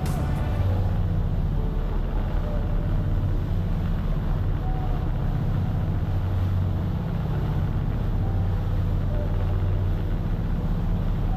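Dive boat's engine running steadily, a low, even drone.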